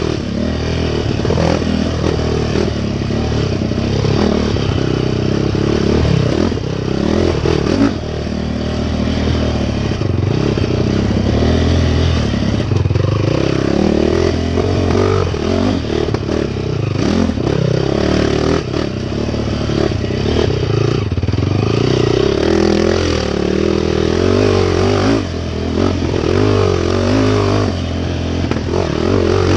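Off-road racing motorcycle engine revving up and down without a break as the bike is ridden hard, its pitch rising and falling many times, with rattling and clatter over rough ground.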